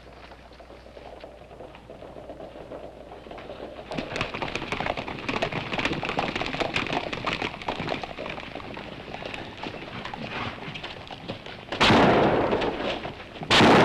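Horses galloping, the hoofbeats building up into a dense clatter for several seconds, then two loud revolver shots about two seconds apart near the end.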